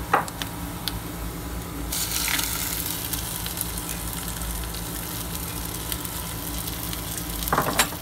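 Chopped onion sizzling in oil in an enamelled cast-iron pot. About two seconds in, raw rice is poured in and the sizzling gets louder and brighter, with light clicks and scrapes as it is stirred.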